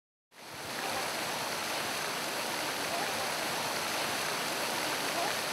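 A steady rushing noise with no distinct pitch fades in just after the start and holds at an even level.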